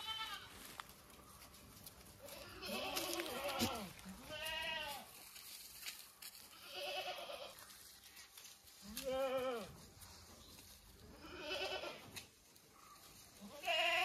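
Goats bleating over and over, about seven short wavering calls spaced a couple of seconds apart, some higher and some lower in pitch.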